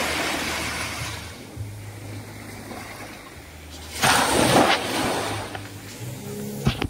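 Sea waves breaking on the beach: a rush of surf at the start, then a louder wave crashing about four seconds in, over a low steady hum.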